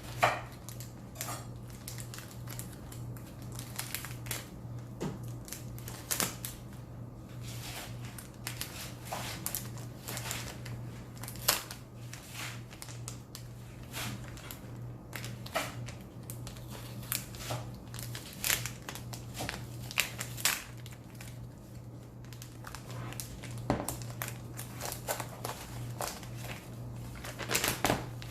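Laptop packaging being handled and unwrapped: crinkling wrap and paper with scattered sharp clicks and taps, over a steady low hum.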